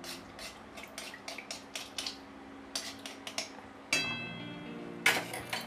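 Metal spoon clinking and scraping against an aluminium kadai as ghee is worked into hot oil: a run of quick, irregular metallic clicks, with a louder clank about five seconds in.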